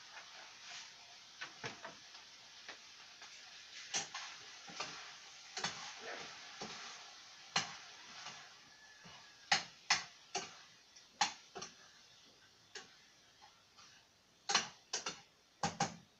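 A cooking utensil clacking and scraping against a frying pan as ground pork, beans and potatoes are stirred: irregular sharp clicks, coming more often and louder in the second half. A steady frying sizzle runs underneath.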